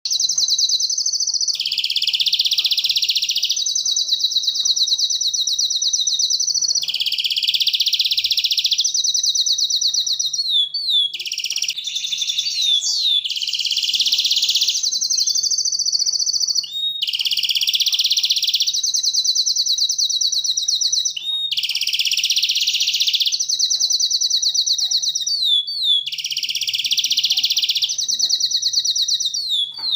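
Domestic canary singing continuously: phrase after phrase of fast, high trills, each lasting a second or a few seconds, changing texture from one phrase to the next.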